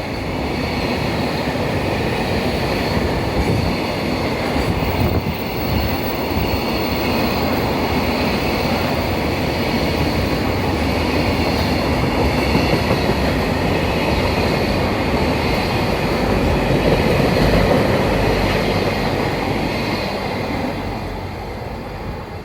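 Freight train's wagons rolling past on the rails: a steady, loud rumble of steel wheels with a thin high squeal above it, fading over the last couple of seconds as the train draws away.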